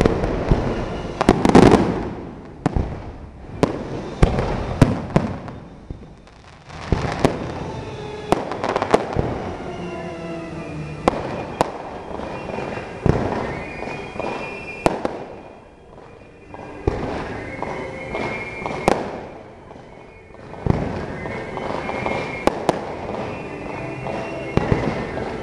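Aerial fireworks shells bursting overhead in an irregular string of sharp bangs, heaviest in the first couple of seconds, with brief lulls between volleys.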